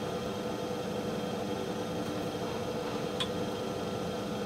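Steady hum and hiss of running laboratory equipment, with a single light click about three seconds in.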